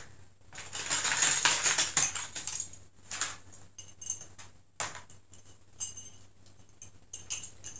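Loose wire swing-top bottle cap bails and fittings jangling against each other and a plastic tray as they are picked through: a dense clatter over the first two seconds, then scattered single clicks.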